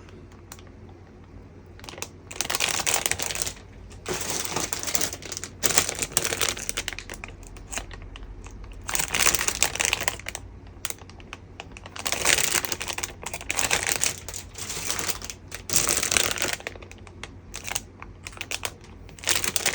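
Thin plastic bags crinkling and rustling in irregular handfuls as bagged model-kit runners are handled.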